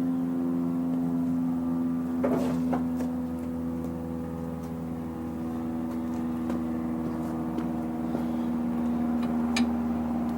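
Steady machine hum with a few short clicks and knocks of metal parts being handled, about two seconds in and again near the end.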